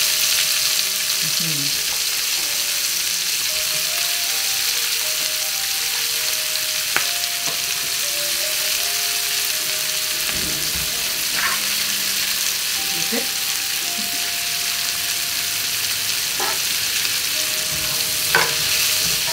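Onion, leek and carrots sizzling in bacon fat in a cast-iron skillet: a steady frying hiss, with a few sharp clicks of a metal utensil against the pan as the vegetables are added and stirred.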